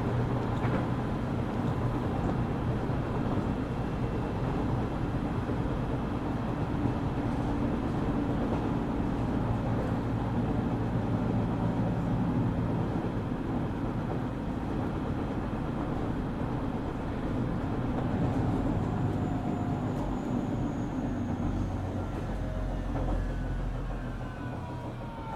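JR Kyushu 817 series electric train running, heard from inside the car: steady motor and rail noise from an unusual-sounding unit, which the uploader likens to a Keio 7000 series. Near the end a cluster of falling whines comes in and the noise eases as the train begins to slow.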